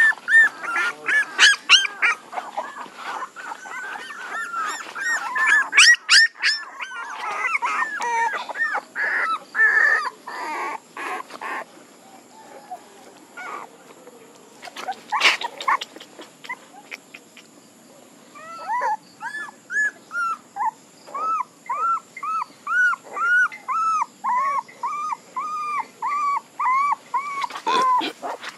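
Young puppies whimpering and whining in short, high, arching cries. At first several cries overlap; after a quieter stretch in the middle, the crying settles into a steady run of about two cries a second.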